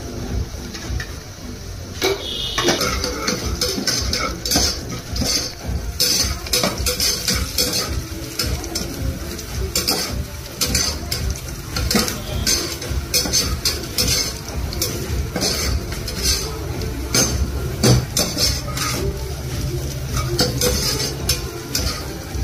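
A metal spoon scraping and clinking against the inside of a pressure-cooker pot, stirring sliced onions in oil. The strokes start about two seconds in and come thick and fast from about six seconds on.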